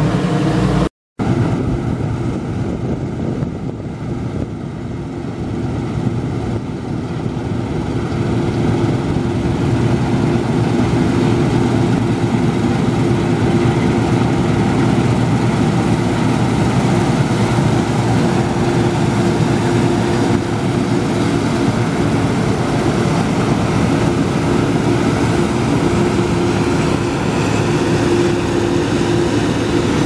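Steady mechanical drone of machinery running, with a constant hum, broken by a brief dropout about a second in.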